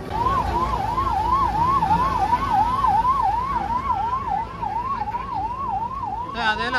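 Vehicle siren sounding a fast up-and-down wail, a little over three sweeps a second, over a low rumble. Near the end a second, wavering siren-like tone joins in.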